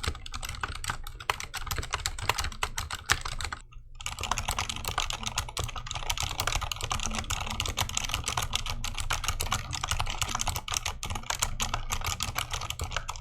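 Fast, steady typing on a 60% mechanical keyboard with Silent Red linear switches, stock from the factory. The clicks are dense throughout, with a brief break about four seconds in.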